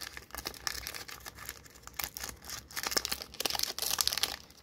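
Foil wrapper of a Yu-Gi-Oh booster pack crinkling and tearing as it is pulled open by hand, opening easily. The crackle grows louder and denser about three seconds in.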